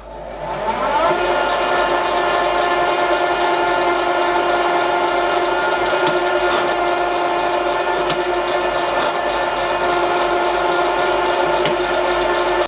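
Milling machine spindle motor spinning up, its whine rising over about a second, then running at a steady pitch while a small drill cuts steam passages into a metal cylinder block, with a few faint ticks.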